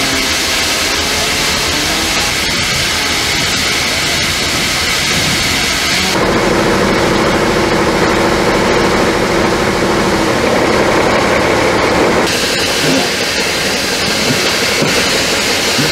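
A steady engine running under heavy hiss, with a steady multi-tone hum clearest in the middle stretch. The sound changes abruptly about six and twelve seconds in, at edits in the footage.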